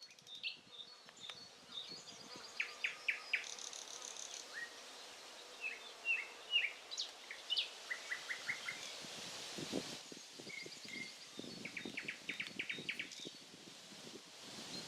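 Nightingale singing: separate phrases of repeated whistled notes, such as a run of four sharp falling strokes about three seconds in and a fast series of notes late on, with short pauses between phrases.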